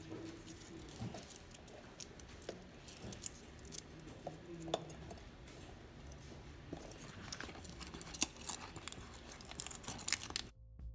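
Garlic cloves rolled inside a silicone tube garlic peeler on a stone countertop: papery garlic skins crackling and rustling, with scattered light clicks and taps.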